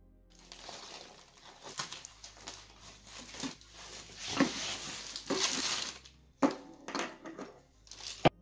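Plastic packaging rustling and crinkling as a plastic mailer is cut open and a plastic-wrapped tripod is unwrapped, with a few sharp clicks and knocks among the rustles, the sharpest near the end.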